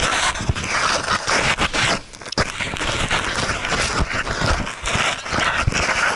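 Loud scraping and rustling of clothing and the camera against rock, with irregular knocks, as someone crawls through a tight cave passage.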